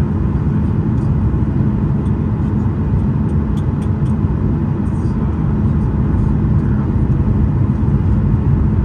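Steady low rumble of a Boeing 737 airliner in flight, its jet engine and airflow noise heard from inside the passenger cabin on approach.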